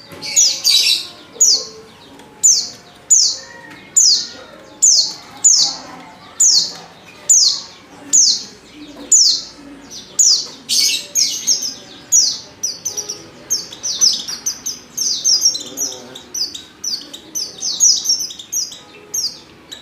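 Female white-eye (pleci) calling: short, high-pitched, downward-sliding chirps repeated about once a second, coming faster and overlapping in the second half. This is the female's call used as a lure to set male white-eyes singing.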